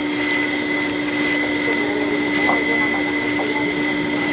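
A steady background hum with a low tone and a high-pitched whine, and a couple of faint clicks.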